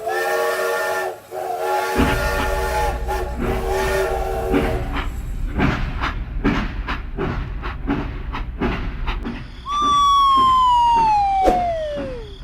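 A whistle of several pitches sounding together, held steady for about five seconds. About two seconds in, a low engine rumble starts, with a run of irregular knocks over it. Near the end, a loud whistle glides steadily down in pitch for about two and a half seconds.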